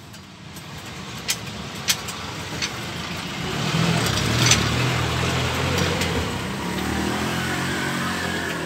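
A motor vehicle's engine running, growing louder over the first few seconds and then holding fairly steady, with a few sharp clicks over it.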